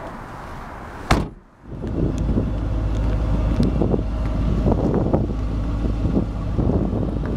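The trunk lid of a 2008 Ford Mustang GT slammed shut with a single loud bang about a second in, followed by steady wind buffeting on the microphone.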